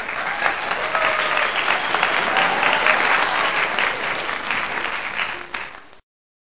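A crowd applauding: dense, many-handed clapping that eases off and then cuts off suddenly about six seconds in.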